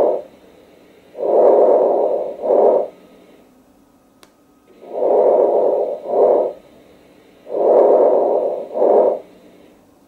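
Lung auscultation recording of decreased vesicular breathing: a rushing breath sound on each inhalation followed by a shorter one on exhalation, with pauses between. Three full breaths are heard, after the tail of an earlier one.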